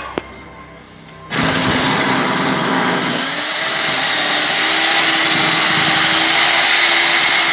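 Corded electric drill starting about a second in and boring into a concrete floor, a loud steady grinding that runs on. It is drilling the holes through the floor along the wall base that a termite ground treatment is injected through.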